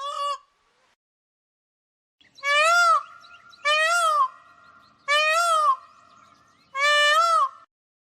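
A bird calling four times, each call a loud, harsh, pitched cry about half a second long that rises and falls in pitch, with a short clipped cry right at the start.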